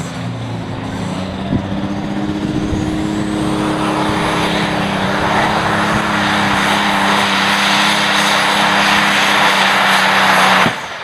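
A jacked-up pulling semi truck's diesel engine at full throttle under load down the track. The roar builds over several seconds, then cuts off suddenly near the end.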